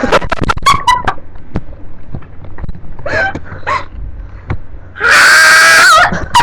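A girl's voice: a few short clicks and brief vocal bursts, then a loud, high-pitched scream about five seconds in that holds one pitch for about a second.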